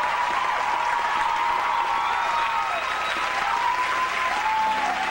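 Theatre audience applauding steadily, with a few long gliding pitched tones heard over the clapping.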